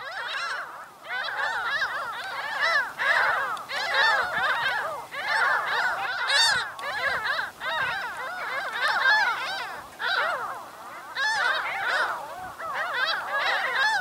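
A flock of gulls calling, many cries overlapping in a continuous chorus that swells and eases.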